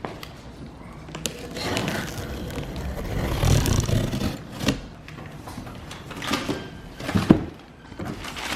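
Wagon wheels rolling and scraping across the floor under a large cardboard box, with a few knocks and thuds, the sharpest about seven seconds in.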